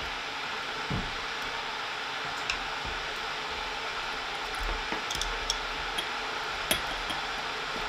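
A handful of small clicks and taps from the metal parts of a stripped-down Umarex HDX 68 CO2 air shotgun being handled on a work mat, the sharpest about two-thirds of the way through, over a steady background hiss.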